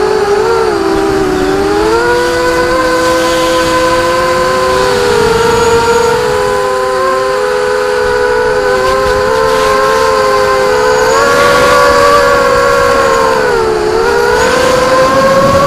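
Multirotor drone's motors and propellers whining steadily. Several close pitches drift up and down together as the throttle changes, with a brief dip near the end before they rise again.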